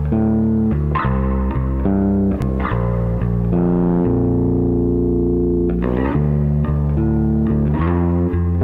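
Instrumental ambient music: sustained chords that change every second or so, with strong low notes.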